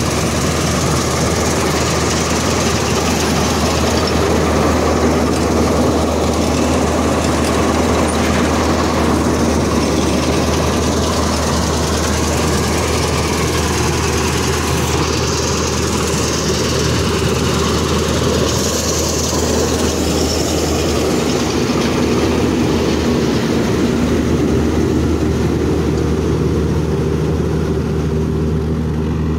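Combine harvester running steadily while cutting ripe paddy: a loud, continuous engine hum with the mechanical din of the cutting header and threshing works.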